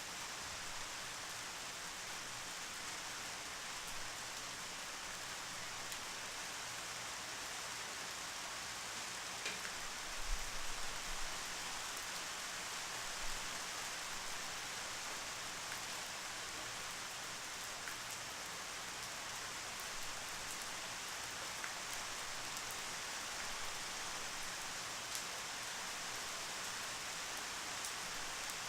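Steady rain falling: an even hiss with scattered ticks of single drops. A brief cluster of louder, low knocks comes about ten seconds in.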